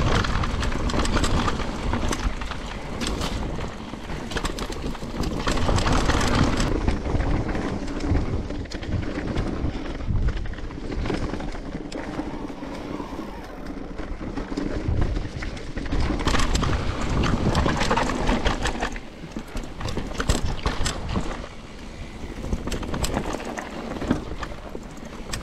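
Giant Reign E+1 electric mountain bike ridden down a rough forest trail: tyres rumbling over dirt and roots, with the frame and chain rattling and clicking at every bump. Wind buffets the camera microphone, and the noise swells and eases as the trail gets rougher and smoother.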